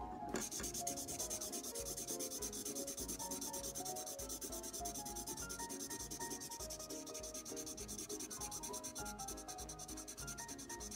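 Felt tip of a water-filled magic colouring pen scrubbing back and forth on a colouring-book page in quick, steady strokes. A faint melody of short notes runs underneath.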